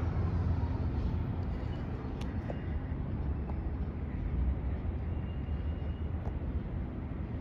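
Steady low rumble of outdoor city background noise, with a few faint ticks.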